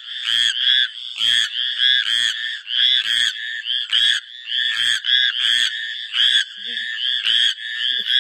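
Green tree frog calling: a fast, even series of short croaking notes, about two to three a second.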